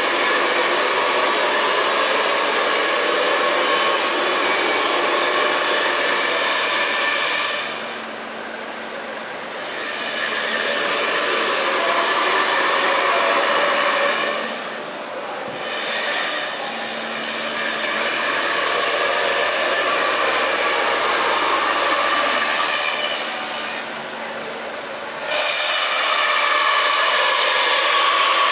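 High-speed 20 kW CNC router spindle milling a foam block with a long end mill, giving a steady, dense rushing noise that briefly drops quieter three times.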